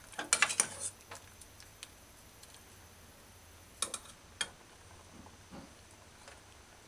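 Large metal spoon clinking against a metal cooking pot as thyme stems are fished out of the stew. A quick cluster of clinks comes at the start, then two single clinks about four seconds in, with faint knocks after.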